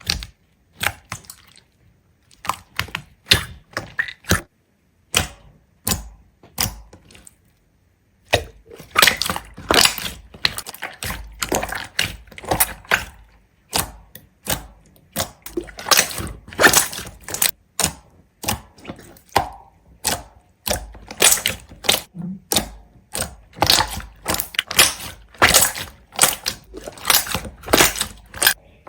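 A run of sharp clicks and knocks, a few at a time with pauses for the first eight seconds or so, then coming fast and almost without a break.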